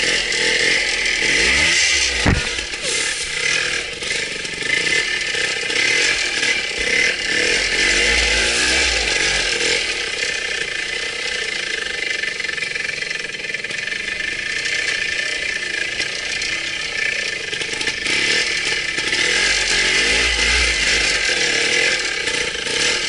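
Trials motorcycle engine running at low speed and revving up and down as the bike picks its way over rough ground, heard from on the bike itself. A sharp knock sounds about two seconds in.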